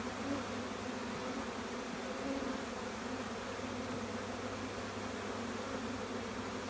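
Swarm of honeybees buzzing in a steady, even hum.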